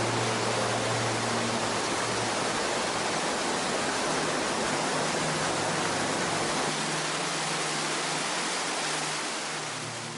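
Waterfall: the steady, dense rush of falling water, easing a little near the end, with faint low music tones underneath.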